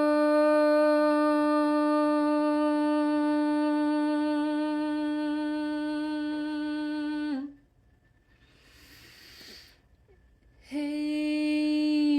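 A woman's voice holding one long, steady note with a rich ring of overtones. About seven seconds in she breaks off and takes an audible breath, then picks up the same note again near the end.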